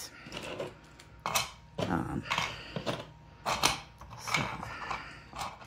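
Small 3D-printed plastic pieces clicking and clacking as they are set down and fitted onto a printed toy house: half a dozen light, separate taps.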